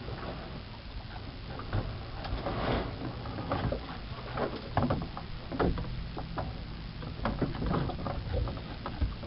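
Scattered, irregular knocks and clunks from a small wooden boat and its sculling-oar mount being handled as someone climbs aboard, over a steady low rumble.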